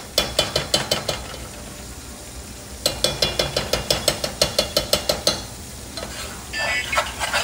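A metal utensil stirring in a saucepan, clinking rapidly against the pot about six times a second in two runs with a short pause between, over a faint sizzle.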